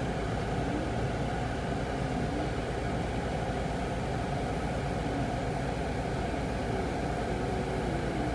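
Steady low rumble of an idling engine, with faint wavering tones above it.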